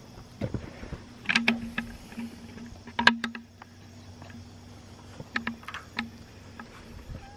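A wooden-framed wire-mesh pen door being handled and shut: a series of knocks and clicks, the loudest about three seconds in.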